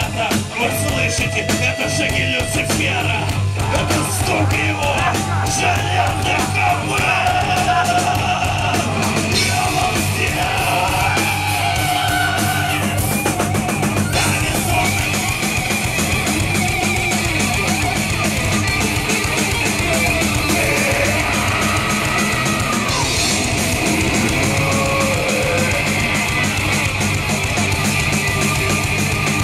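Heavy metal band playing live: distorted electric guitars and drum kit, with a male singer yelling and singing into the microphone over them.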